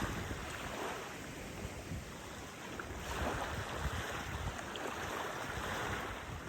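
Steady wash of water along the shore with wind on the phone's microphone, swelling a little about three seconds in.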